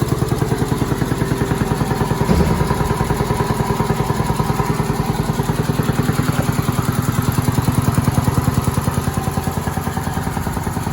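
Ingersoll Rand air compressor running steadily, with a fast, even pulse from its pumping strokes and a brief louder knock about two seconds in.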